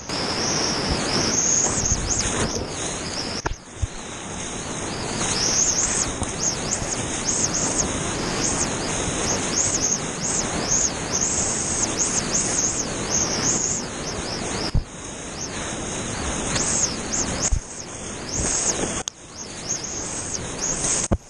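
Whitewater rapids rushing loudly and continuously, with a few sharp knocks.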